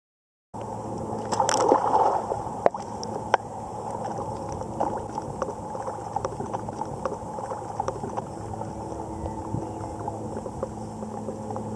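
Swimming-pool water lapping and sloshing around a camera at the waterline, muffled, with many small clicks and a louder splashing gurgle about a second in. A steady low hum runs underneath.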